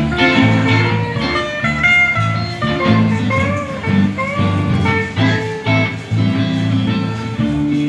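Live band playing amplified electric guitars, a guitar melody over steady low notes.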